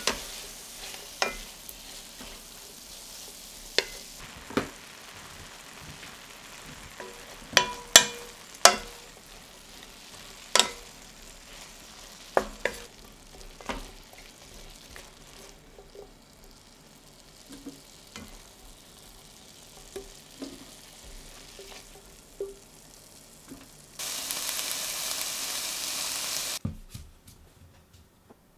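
Strips of rump steak sizzling in oil in a stainless steel sauté pan, stirred with a spatula that knocks and scrapes against the pan at irregular moments, most often in the first half. Near the end a louder, steady sizzle lasts about three seconds, then cuts off suddenly.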